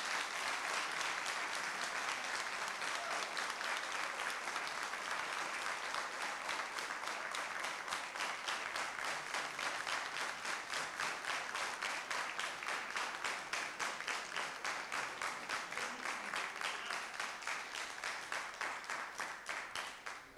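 Audience applauding; the applause soon falls into rhythmic clapping in unison, about three claps a second, and dies away near the end.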